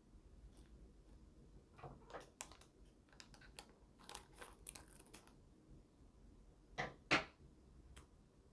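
Light handling noises while making a DIY candy kit: scattered clicks, taps and scrapes of small pieces, with two louder knocks about seven seconds in.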